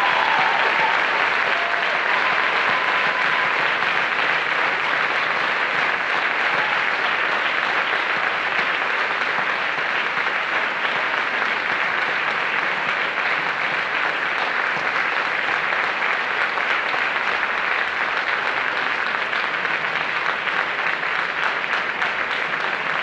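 Audience applauding steadily, one long unbroken round of applause lasting over twenty seconds.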